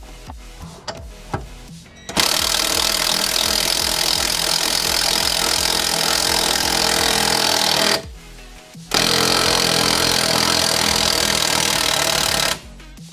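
Cordless impact wrench running in two long, loud bursts, the first about six seconds and the second about four, with a short break between them.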